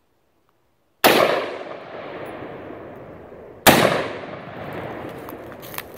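AR-15 pistol firing two 5.56 rounds about two and a half seconds apart, each shot followed by a long echo that dies away slowly.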